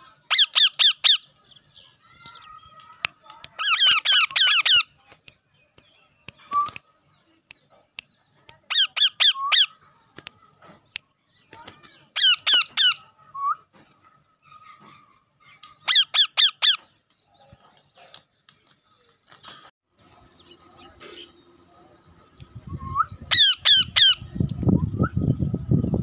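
Green ringneck parakeets screeching in short bursts of rapid repeated harsh notes, a burst every few seconds. A loud low rumble comes in over the last few seconds.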